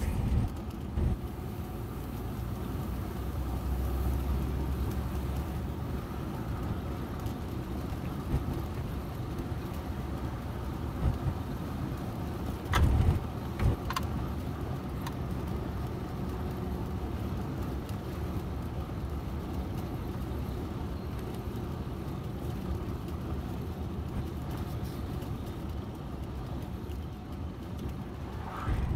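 Steady engine and road noise from inside a delivery vehicle's cab while driving, with two short knocks a little under halfway through.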